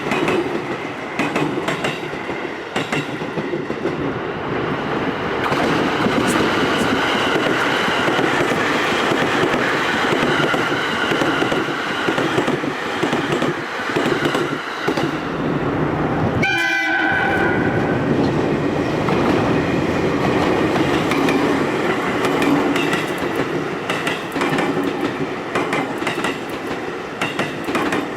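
Freight train passing close by, its wheels clattering steadily over the rail joints, with a short horn blast about seventeen seconds in.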